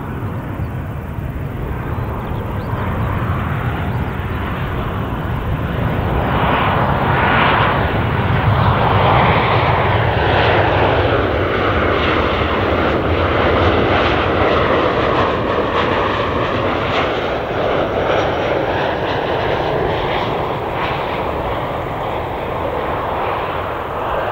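Boeing 737-800 jet airliner on final approach with its gear down, passing low overhead. Its two CFM56-7B turbofan engines make a steady rushing jet noise that swells to a peak about halfway through and then slowly fades, the tone sweeping as it passes.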